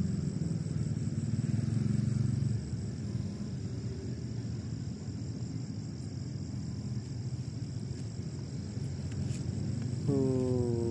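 Night insects chirring steadily in a high, even tone over a low rumble that is louder for the first two seconds or so. Near the end a short falling tone cuts in.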